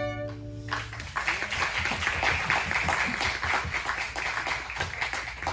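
The last held chord of several fiddles and an acoustic guitar dies away, and about a second in an audience starts applauding. The applause thins out near the end.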